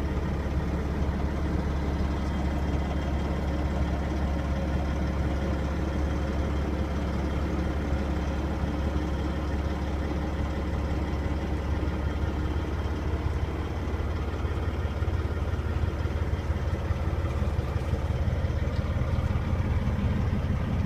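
Caterpillar C15 inline-six diesel in a Peterbilt 379 highway tractor idling steadily, heard from inside the cab.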